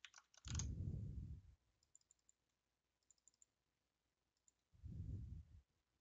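Faint computer-mouse clicks, with two soft, low puffs of breath on a close headset microphone, about half a second in and near the end.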